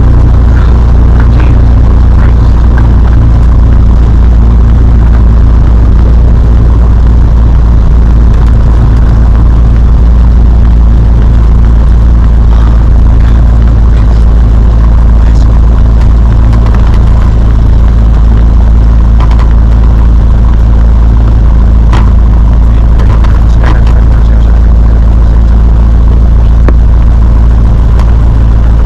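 Cessna 172's piston engine and propeller, a loud, steady low drone heard from inside the cockpit.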